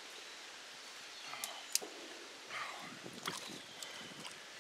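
Shallow creek water sloshing and splashing around an arm working in a muddy hole under a bank, over the steady run of the stream. Two sharp clicks come about one and a half seconds in.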